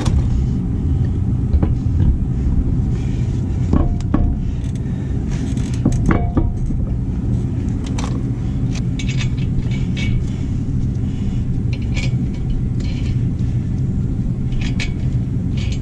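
Lug nuts clicking and clinking as they are started by hand on the wheel studs while the wheel is mounted, a few scattered short metallic clicks over a steady low rumble.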